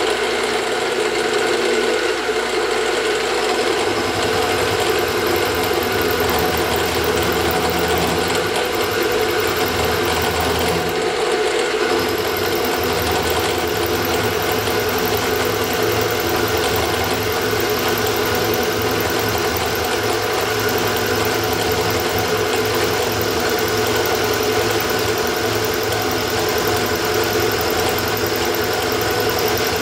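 Precision Matthews PM-727M milling machine running steadily, its end mill taking a full-depth cut in the side of a metal bearing block as the workpiece is fed in. The motor and spindle give a steady whine, and the low rumble under it changes a couple of times as the feed changes.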